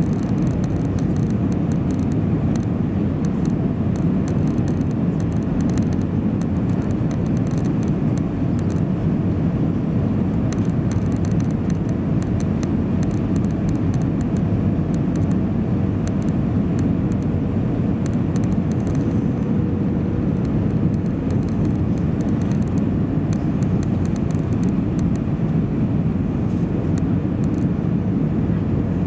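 Steady cabin drone of an Airbus A319-131 heard from inside the passenger cabin: its IAE V2500 engines and the airflow make an even, low noise, with a faint steady whine running through it.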